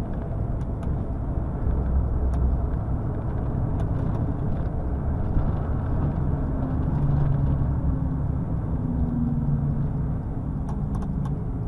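Lorry driving along, a steady low rumble of engine and road noise, with a faint engine hum coming and going in the middle.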